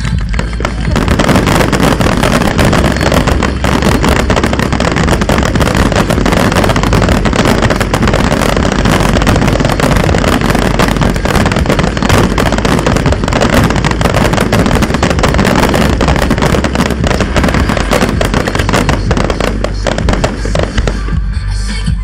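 Fireworks display, with ground fountains and aerial shells going off in a dense, continuous run of crackles and bangs that thins near the end. Music plays along with it.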